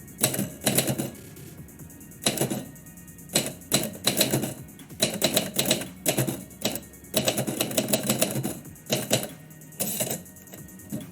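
Typewriter keys striking in quick bursts of typing separated by short pauses, with instrumental background music underneath.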